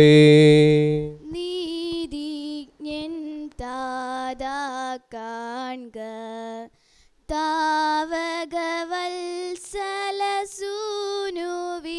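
A priest's chanted blessing ends on a long held note in the first second, then a woman sings a slow Malayalam liturgical hymn in short phrases separated by brief pauses.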